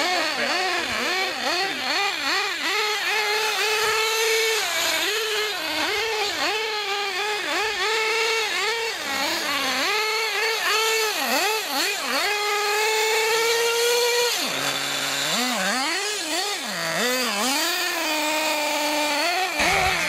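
Small nitro (glow-fuel) engine of a radio-controlled car, revving up and down over and over as the car accelerates and brakes, with one longer steady high run before the pitch drops sharply.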